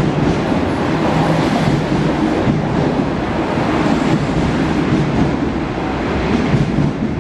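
25T passenger coaches of a non-stop train passing a platform at speed: a steady, loud rushing rumble of wheels on the rails and moving air.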